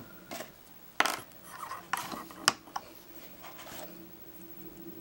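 Hard plastic LEGO pieces clicking and knocking as a LEGO fishing rod is handled and fitted onto the toy boat's deck. There are several sharp clicks, the loudest about a second in and again halfway through, then a softer rubbing rustle.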